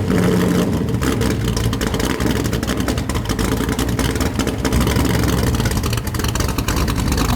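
1981 Chevrolet Corvette's 350 V8 running steadily through its freshly welded exhaust, with no clanking or puffing from the pipes now that the leak is fixed and new motor mounts are fitted.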